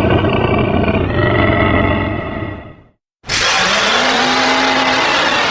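Two pitch-shifted roars of the kaiju Gomora. The first, with several held tones, fades out about three seconds in; after a short break a second, harsher and hissier roar starts, with a low tone that rises and then holds.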